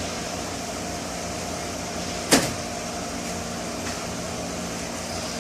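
Steady machine hum in a workshop, like a running fan, with one sharp knock about two seconds in, as of a part set down on the bench.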